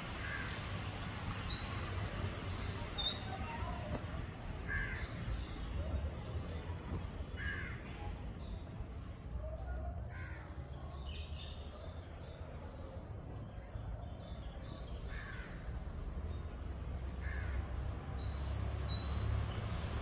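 Birds calling in woodland: a short, harsh call repeated every two to three seconds, with higher, thinner chirps from other birds in between, over a low steady rumble.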